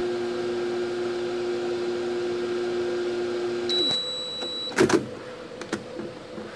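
Sharp Carousel microwave oven running with a steady hum that stops about four seconds in as the cycle ends, marked by one high end-of-cycle beep. About a second later the door is released with a loud clack.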